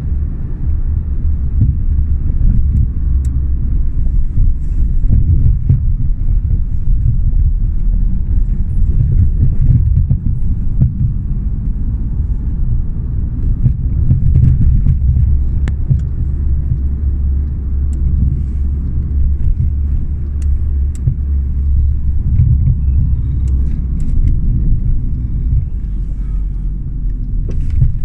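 Steady low rumble of a car driving along a city street, heard from inside the cabin: engine and tyre noise, with a few faint clicks.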